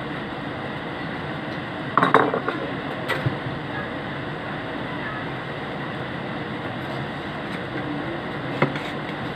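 Metal parts or tools clinking and knocking against each other, a short cluster about two seconds in and a single click about a second later, over a steady background hiss.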